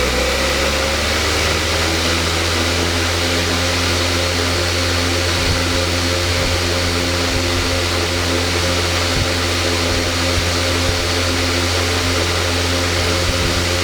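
Electric fan running steadily: a low motor hum with a few steady tones over an even rush of moving air.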